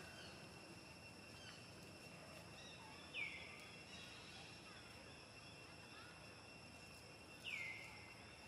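Faint outdoor ambience with a steady high insect drone. Twice, about three seconds in and again near the end, a short, loud whistled animal call drops in pitch and then holds briefly.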